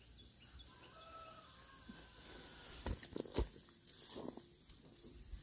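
Faint rural outdoor ambience: a few soft bird calls, a steady high hiss, and a short cluster of knocks or footsteps about three seconds in.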